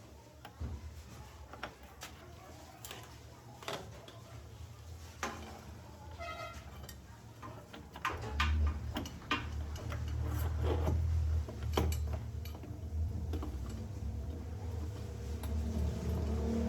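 Scattered light taps and clicks, with a low steady hum setting in about eight seconds in.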